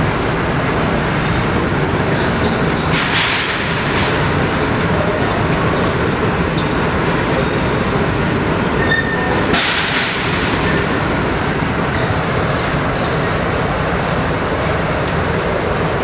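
Torrential rain pouring down in a dense, steady roar, with two brief louder hissing surges about three and nine and a half seconds in.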